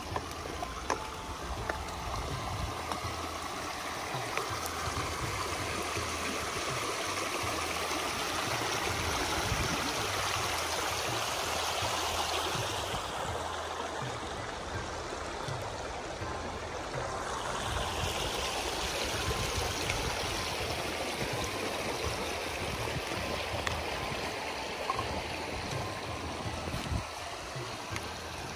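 Shallow river rushing over rocks and stones: a steady wash of moving water, its hiss dulling for a few seconds midway.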